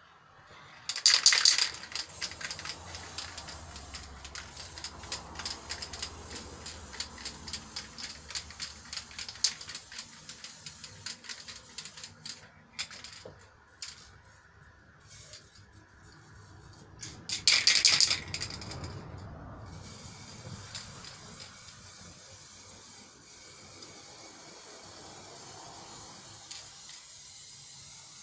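Aerosol spray paint can: a short loud burst of spray, then the can shaken hard with its mixing ball rattling in quick clicks for about ten seconds, a second short burst of spray, then a quieter steady hiss of spraying.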